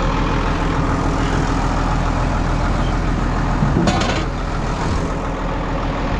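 Vehicle engine running steadily, with a short higher-pitched sound about four seconds in.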